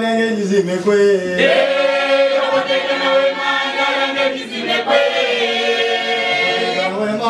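A traditional African cultural choir singing a chant-like song together in long held notes.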